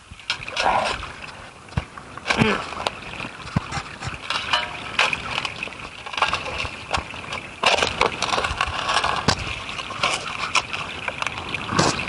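Steel spade digging in soil: repeated scraping thrusts of the blade into earth and grit, with scattered sharp knocks as it strikes stones, and loose dirt shifting as it is lifted.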